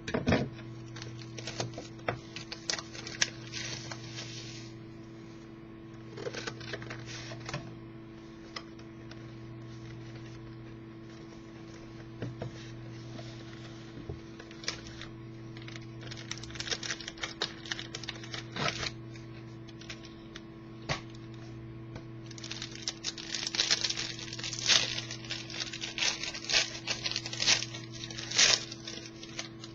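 A sealed trading-card box and pack being opened and handled by hand: clicks and bursts of crinkling and rustling come in clusters, busiest near the end, over a steady electrical hum.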